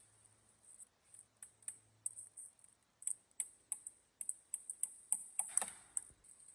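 Small wooden pieces being handled and fitted, making light, irregular clicks and taps that come thicker in the second half.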